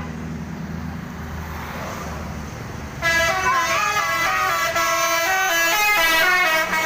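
A bus engine running low, then about three seconds in a basuri musical bus horn plays a fast tune of changing notes, loud and lasting to the end.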